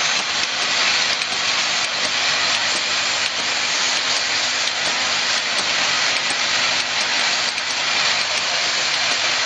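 Automatic roller clamp assembly machine running: a steady hissing rattle of its vibratory parts feeder and indexing star wheels, with faint regular clicks.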